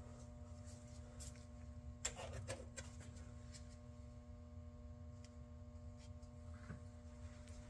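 A few faint clicks and light rattles of small parts being handled while fitting the washer and clip pin onto a UTV's shifter linkage, with a short cluster about two seconds in, over a steady low hum.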